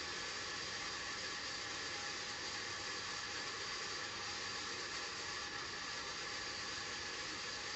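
Sawmill band saw running and ripping a log into boards: a steady, even hiss with a faint high whine.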